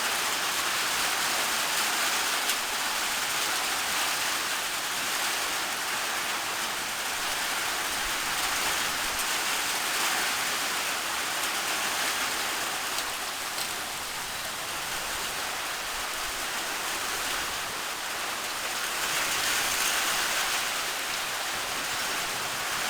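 Steady rain falling, an even hiss that swells slightly near the end.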